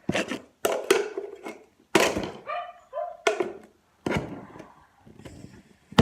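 Slime and its plastic pots being handled: a run of thuds and wet squelches, roughly one a second, with a short pitched squelch a little after the middle.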